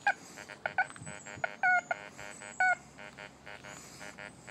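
Fisher F75 SE metal detector giving a rapid series of short electronic beeps, with a couple of wavering tones about a third and two-thirds of the way through. The beeps are its response as the large elliptical coil sweeps over a big hand-cut iron nail.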